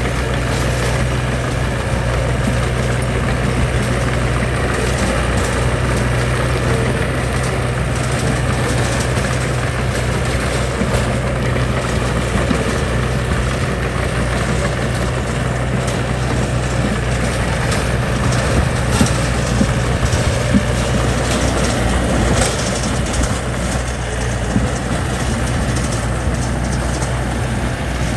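Heavy construction machine's diesel engine running steadily with a low drone, with a few light knocks in the second half.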